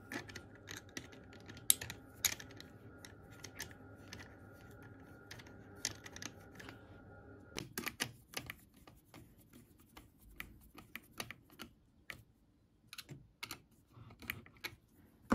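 Light, irregular clicks and taps of small hand tools, a metal pick and then a screwdriver on the cover-plate screws, against the plastic of a 3D-printed model engine's steam chest. A faint steady hum underneath stops suddenly about halfway through.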